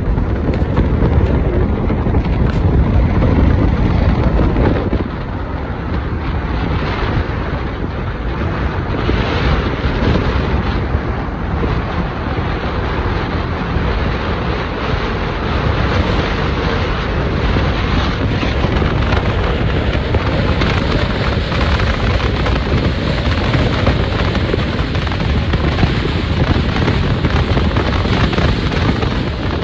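Wind buffeting the microphone of a moving vehicle, over a steady rush of road and engine noise. It is loudest in the first few seconds and eases a little about five seconds in.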